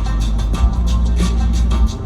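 Music with a steady beat: quick high ticks about four a second over heavy bass.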